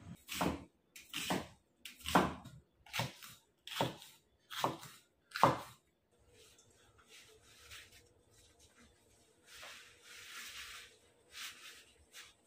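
Chinese cleaver chopping vegetables on a wooden cutting board, about seven even strokes a little under a second apart, then only faint scattered noise for the rest.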